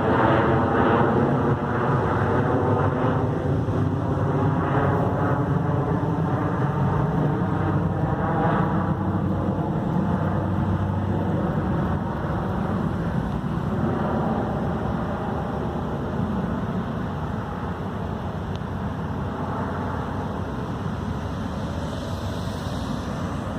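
Aircraft passing overhead: a steady engine noise whose pitch slowly sweeps and whose level gradually fades as it moves away.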